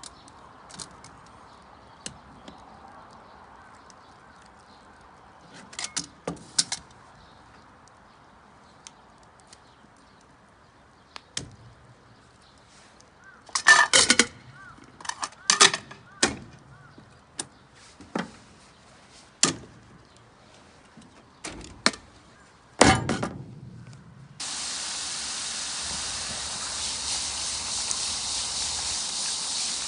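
A series of sharp knocks and clinks, loudest in a cluster about halfway through, then a steady hiss that starts suddenly near the end.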